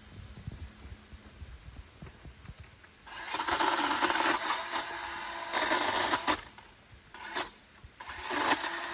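DeWalt battery chainsaw cutting through a branch: a quiet start, then the motor runs and the chain bites from about three seconds in for about four seconds, stops briefly, and starts cutting again near the end.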